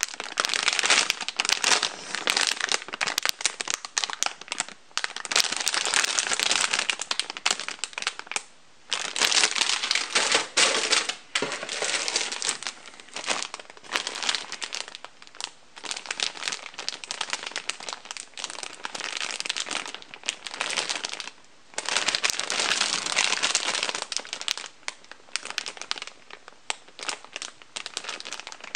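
Clear plastic bags crinkling as plastic model-kit runners are handled inside them, in irregular spells broken by a few brief pauses.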